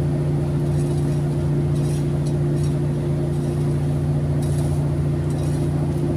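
A motor engine running steadily at an unchanging pitch, with a few faint scraping chops of a hoe blade cutting into grassy soil over it.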